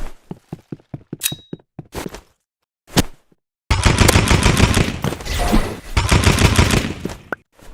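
Paintball gun firing: a scatter of single shots and clicks, one sharper crack about three seconds in, then roughly three and a half seconds of rapid continuous fire.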